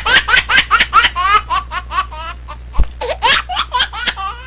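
High-pitched laughter: a quick run of short laughing bursts, several a second, each sliding down in pitch.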